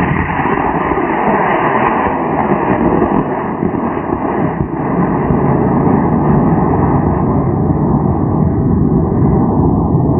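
Solid-propellant model rocket motor burning at liftoff and through the climb: a loud, steady rushing exhaust noise.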